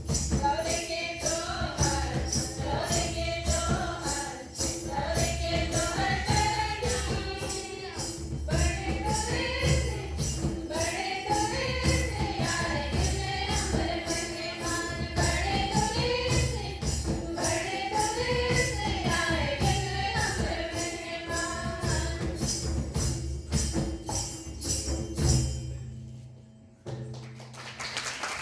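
A group of women singing a song together, with a hand-held tambourine jingling a steady beat. The singing stops about 25 seconds in, and applause starts near the end.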